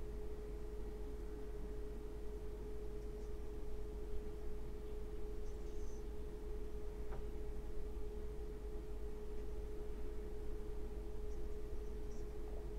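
A steady pure tone at one constant pitch, unbroken throughout, over a faint low hum.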